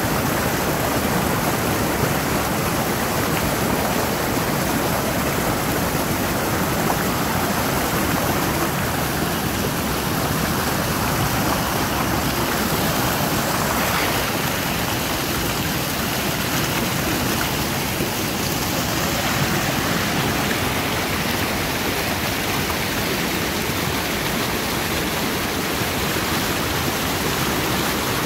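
Rain-swollen creek in flood, its fast water rushing steadily over rapids.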